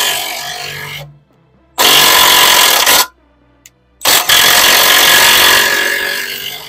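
Cordless impact wrench hammering on the nuts that hold a front ball joint, in three bursts. The first trails off in the first second, the second lasts about a second, and the third starts about four seconds in and fades near the end.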